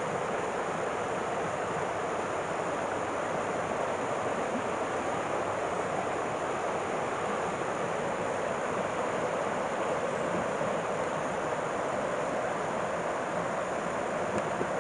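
A river flowing, a steady even rush of water.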